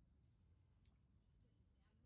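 Near silence: faint room tone with a couple of faint soft ticks, one about a second in and one near the end.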